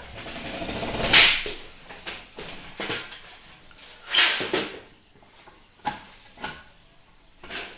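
Two loud scraping swishes, about a second in and about four seconds in, then a few sharp clicks. A thin cord or strip is being pulled along and pressed into the channel of an aluminium window frame.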